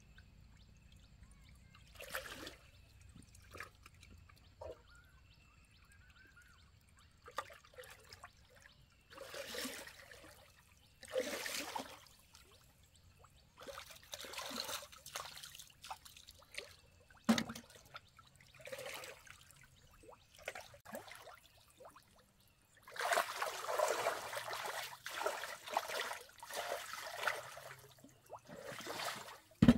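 Water splashing and pouring in short bursts, with a longer, louder stretch of splashing near the end.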